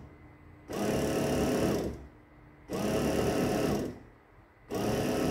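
Tesco BM1333 bread maker's motor turning the drive spindle through its newly replaced belt, with the pan out. It runs in short whirring spells of about a second with brief stops between, three times. The drive is turning again, so the belt repair is working.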